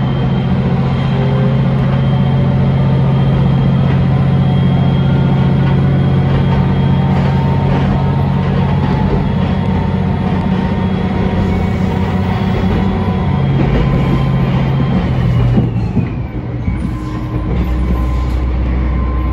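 Diesel railcar engine running under load as the train pulls away from a station and picks up speed, heard from inside the car, with wheels rumbling on the rails. About sixteen seconds in the engine note changes and settles lower, and a high whine glides down.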